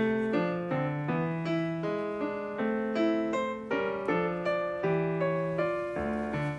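Background piano music: a steady run of single notes, about three a second.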